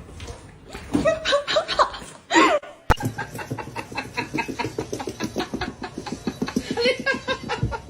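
A person laughing in quick repeated bursts, after a sudden cut about three seconds in.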